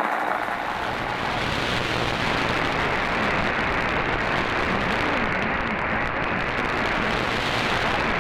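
Shortwave receiver static: a steady hiss of band noise while tuned to station WRMI on 7570 kHz, with faint traces of the broadcast buried under it. A lower rumble joins the hiss just after the start.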